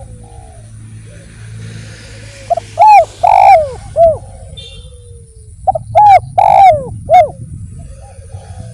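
Spotted dove (derkuku/tekukur) cooing: two loud phrases of about four arched coo notes each, the middle note longer, a few seconds apart, with fainter coos from other doves underneath.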